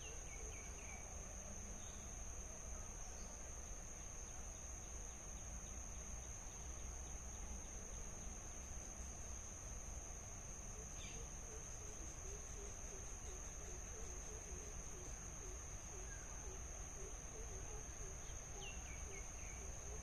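A steady, high-pitched insect drone of crickets or cicadas, with a few short bird chirps near the start, the middle and near the end, and a run of short, low repeated notes in the second half.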